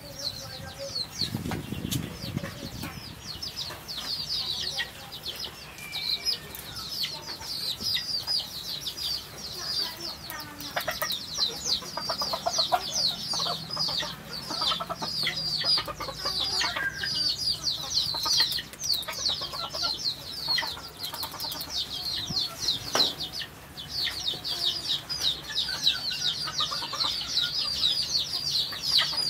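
Many small birds chirping rapidly and without a break, a dense run of high, quickly falling peeps, with a short low thud about a second and a half in.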